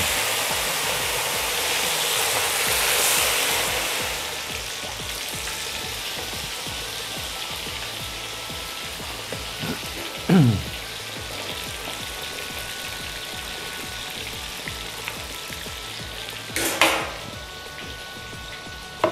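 Whole tilapia coated in spiced grated-coconut batter deep-frying in hot oil. The sizzle is loudest in the first few seconds as the fish goes in, then settles to a steady frying hiss. A brief falling whistle-like tone comes about halfway through, and a short louder burst of sizzling comes near the end.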